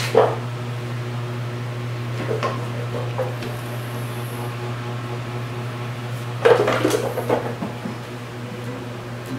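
A steady low hum with a few short knocks and clatters, the loudest a burst of clattering knocks about six and a half seconds in.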